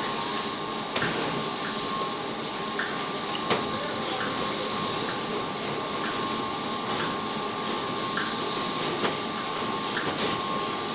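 Clay brick extrusion machine running: a steady mechanical rumble with a constant whine, broken by short clicks about once or twice a second and a few louder knocks.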